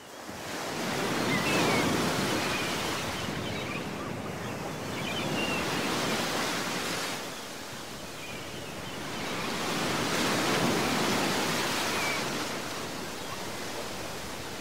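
Small sea waves washing up onto a sandy beach, the surf swelling and ebbing in three slow surges about four seconds apart.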